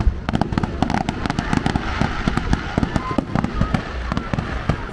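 Fireworks going off in rapid succession: a dense run of sharp crackling pops and bangs, many each second.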